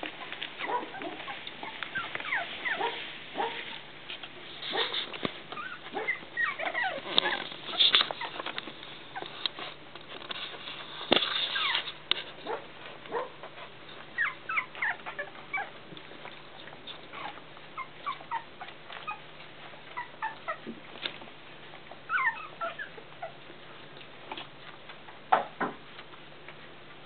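Cavalier King Charles Spaniel puppies whimpering in many short, high squeaks, with a few sharp taps in between.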